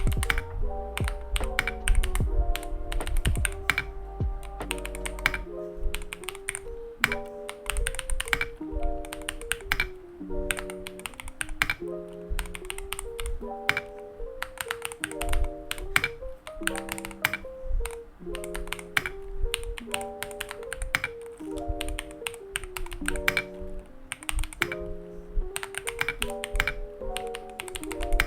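Sound test of a Keychron V2 mechanical keyboard with White Jade switches and transparent MDA-profile PBT keycaps: continuous quick typing, a steady stream of clacking keystrokes. A melodic music track plays underneath.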